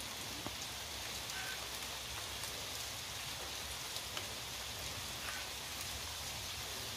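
Heavy rain falling steadily: an even hiss with scattered ticks of individual drops.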